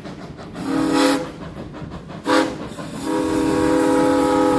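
Steam locomotive whistle blowing a chord of several tones: two short blasts, then a long one beginning about three seconds in.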